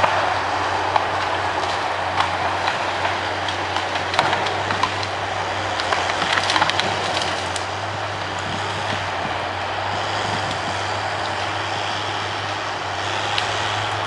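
Log skidder's diesel engine running steadily, with scattered knocks and clatter through roughly the first half.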